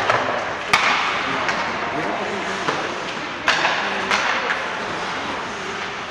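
Ice hockey play in an indoor rink: sharp knocks of stick and puck on the ice, one about a second in and two more around three and a half to four seconds, over steady rink noise and indistinct voices.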